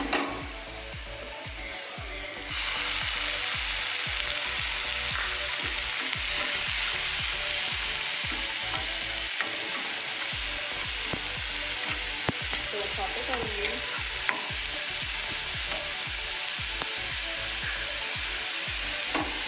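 Onions sizzling in hot oil in a frying pan, the sizzle growing louder about two and a half seconds in as ginger-garlic-onion paste goes into the oil, then holding steady while a spatula stirs and scrapes the pan with small clicks.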